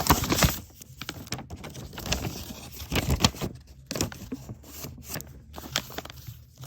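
A small blind-bag packet being torn open and handled, in uneven rustling, tearing bursts, loudest right at the start and again about three seconds in.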